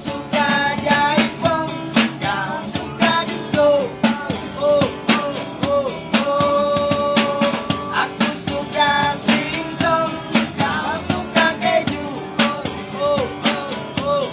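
Street busker singing in an unusual voice, with gliding, bending notes, over music with a steady drum beat.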